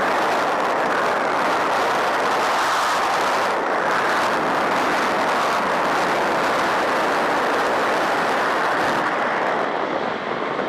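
Steady roar inside a Cessna 150's cockpit in flight: the four-cylinder Continental O-200 engine mixed with wind rushing through the open side window. It eases slightly near the end.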